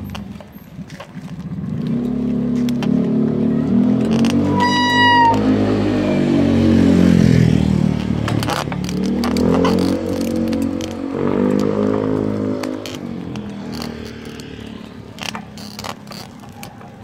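Small motorbike engine running on the move, its pitch rising and falling in slow swells as the rider speeds up and eases off. A short high beep sounds about five seconds in.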